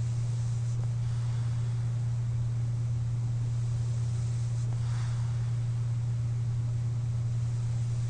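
A sleeper breathing while wearing a CPAP mask: soft, airy breaths about every four seconds, near the start and again around the middle, over a steady low hum.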